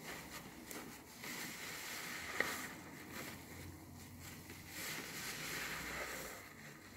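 A new car sponge heavy with soap foam being squeezed and kneaded by hand: wet squishing of lather that swells and eases, with one sharp click about two and a half seconds in.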